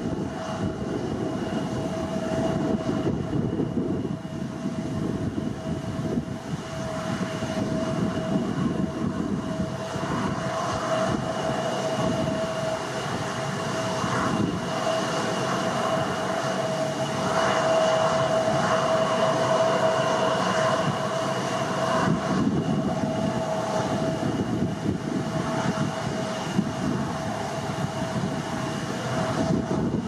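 Boeing 787-8's Rolls-Royce Trent 1000 turbofans at takeoff thrust as the airliner climbs away: a steady jet roar with steady whining tones running through it.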